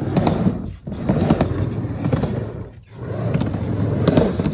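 Skateboard wheels rolling on a mini ramp, a rumbling roll with small clicks that drops out briefly twice, about two seconds apart, as the board rides back and forth.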